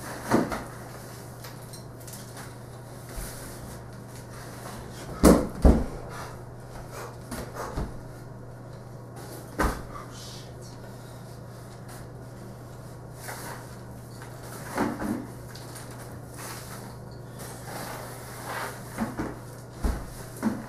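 Wooden crutches and a broom handle knocking against a hardwood floor now and then while hay and dirt are swept, with a loud double clunk about five seconds in and a handful of lighter knocks, over a steady low hum.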